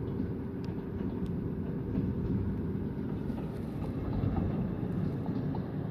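A long train passing close by, its wagons giving a steady low rumble on the rails with a few faint clicks.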